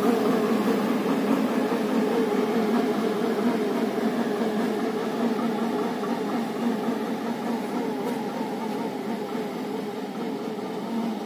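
27 HP tractor running an air-blast blower sprayer while spraying, a steady drone of engine and fan that fades slowly as the sprayer moves away.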